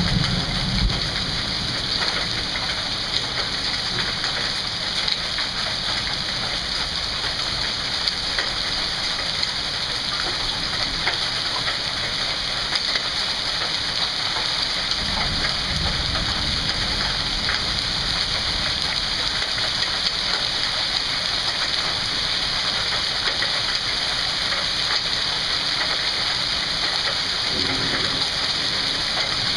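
Steady rain mixed with small hail falling on a lawn, a concrete walk and the street, with scattered faint ticks of hailstones striking. A low rumble comes near the start and again about halfway through.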